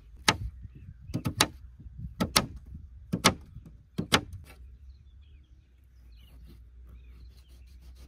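Knife slicing through an onion on a paper-lined tray, each stroke ending in a sharp tap of the blade against the tray. There are about eight taps in the first four seconds, several in quick pairs, and then it goes quieter.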